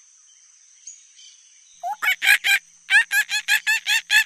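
Monkey call sound effect: a rapid run of short, high, chattering calls that starts about two seconds in, breaks off briefly, then goes on at about six calls a second.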